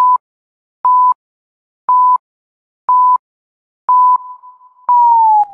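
Electronic beep pips, six of them about a second apart at one steady high pitch, like a radio time signal; the last pip is held longer and starts to slide down in pitch near the end.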